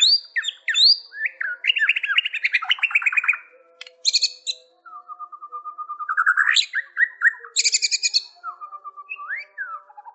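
White-rumped shama singing a varied, continuous song of clear whistles, fast trills and sliding notes, with harsh buzzy notes about four and eight seconds in.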